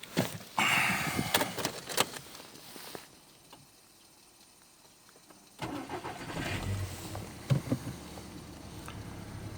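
A few seconds of clicks and handling noise, then the Skoda Octavia A5's 1.6 MPI petrol engine is started about halfway through and settles into a steady idle. This is the winter start at which this car's secondary air pump runs.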